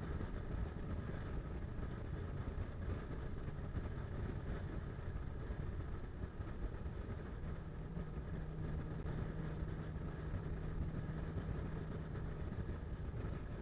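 Steady road noise of a car driving at highway speed, heard from inside the cabin: a low, even rumble of tyres and engine. A low steady hum joins about halfway through and fades near the end.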